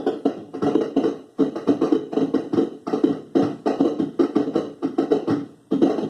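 Circuit-bent pocket sound-effects machine toy with a pitch-bend pot, playing a stuttering run of short, buzzy bursts about two or three a second, broken by brief gaps.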